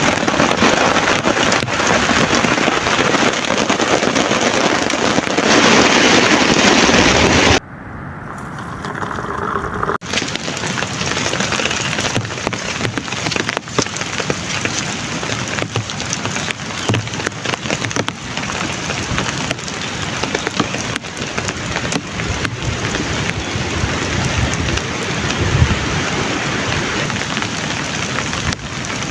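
Heavy rain pouring steadily. It cuts off suddenly after about seven and a half seconds, comes back thinner, and about two seconds later the steady downpour resumes, a little quieter than at first.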